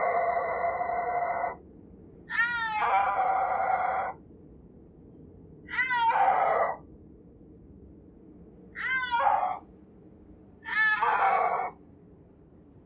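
Snow leopard calling: a series of five loud, high-pitched calls, each one to two seconds long with a short pause between, each opening with a quick wavering of pitch before holding steady.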